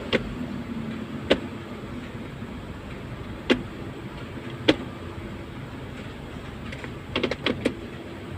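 A car running with a steady low hum, with single sharp knocks about a second apart to a few seconds apart, then a quick cluster of three or four knocks near the end.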